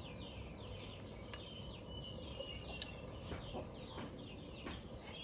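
Birds chirping: many short, falling chirps repeating throughout, with a few faint clicks.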